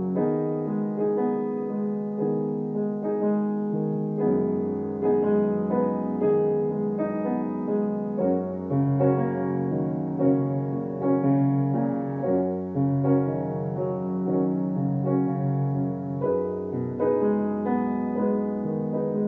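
Acoustic grand piano playing a backing-track accompaniment: chords that change every half second or so over held bass notes.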